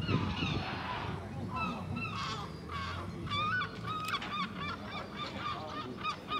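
A flock of birds calling, many short overlapping calls repeating throughout, with a brief low rush of noise right at the start.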